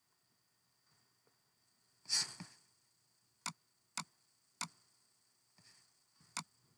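Computer mouse clicking: three sharp clicks about half a second apart, then one more near the end, after a brief rustle about two seconds in, over a faint steady electronic hiss.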